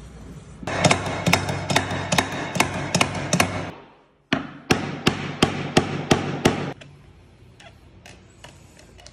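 A hammer knocking on a tapping block to drive a replacement parquet stave tight into its glued slot. The blows come fast and even, about five a second, in two runs of about three and two and a half seconds, with a short break between them.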